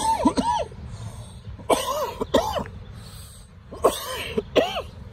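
A man coughing in three bouts about two seconds apart, each bout a couple of harsh hacks, while smoking.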